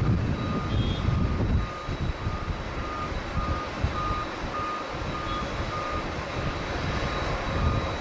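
A vehicle's reversing alarm beeping steadily about twice a second, over the low gusting rumble of strong wind on the microphone.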